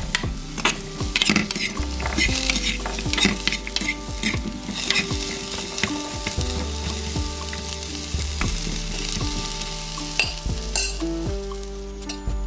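A metal spoon stirring and scraping green chilies, shallots and garlic around a nonstick frying pan while they sizzle, being charred over medium-high heat. Sharp clicks and scrapes from the spoon come throughout over the steady sizzle.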